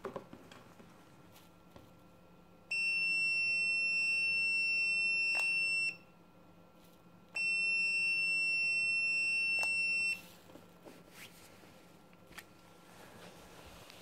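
Multimeter continuity tester beeping twice, each a steady high-pitched tone of about three seconds, while the remote starter switch's push-button is held down: the switch closes the circuit when pressed.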